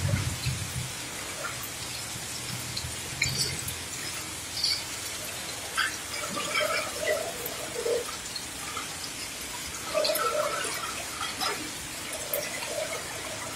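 Heavy rain falling steadily, with water dripping and splattering close by in sharp irregular hits. A motorbike engine passing through the flood fades away in the first few seconds.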